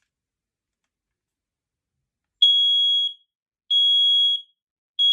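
Smoke alarm sounding under test: two loud, piercing, high-pitched beeps under a second long each, about a second and a half apart, with a third starting at the very end.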